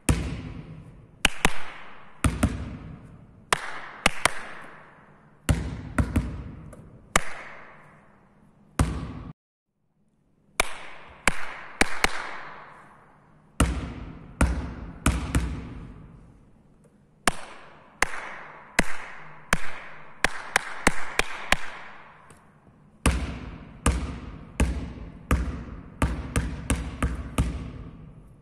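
Basketball dribbled on a sports hall floor in a changing rhythm, each bounce ringing out in the hall's echo. The bouncing breaks off briefly about nine seconds in.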